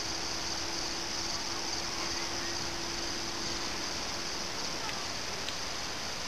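Steady high chirring of insects, with the faint, even hum of a small electric RC plane's brushless motor and propeller flying overhead, which thins out past the middle.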